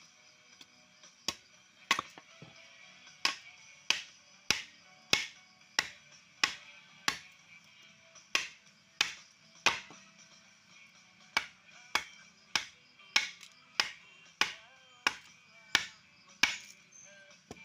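Sharp knocks, about one to two a second at uneven spacing, each with a short ring, like wood being struck or chopped with a hand tool, over faint steady high-pitched tones.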